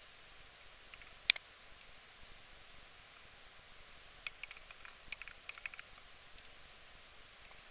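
A single sharp click about a second in, then a scatter of faint ticks and light rustling over quiet room hiss.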